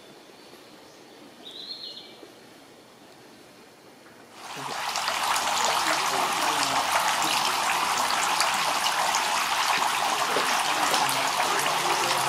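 A short bird chirp over a quiet background, then, from about four seconds in, the steady rushing splash of running water, which cuts off abruptly at the end.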